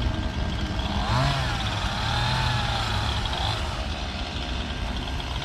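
Engine running with a steady low rumble; about a second in it revs up and holds higher revs for a couple of seconds before dropping back.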